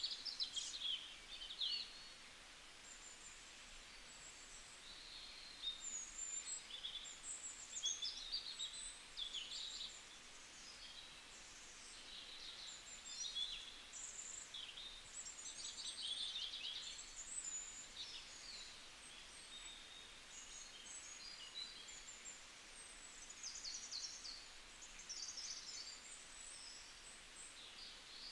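Small birds chirping and singing, with many short high calls and trills overlapping without pause.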